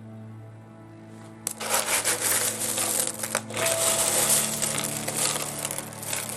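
Small pieces of rough opal and opalised fossil rattling and clinking against each other as they are stirred around, a quick clatter that starts about a second and a half in and keeps going.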